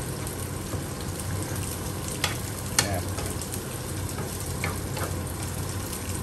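Spinach sizzling in a non-stick frying pan as it is stirred with a wooden spatula, the spatula knocking lightly against the pan a few times.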